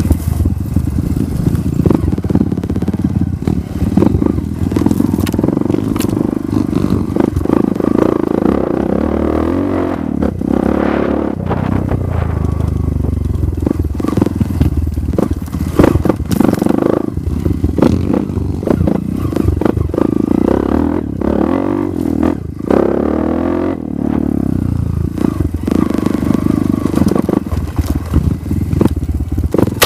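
Trail dirt bike engine running under changing throttle, rising in pitch a couple of times as it revs. Frequent knocks and rattles come from the bike jolting over the rough, rocky dirt trail.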